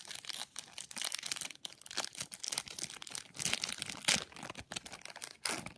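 Foil booster-pack wrapper crinkling as it is torn open by hand and the trading cards pulled out, a dense run of irregular crackles.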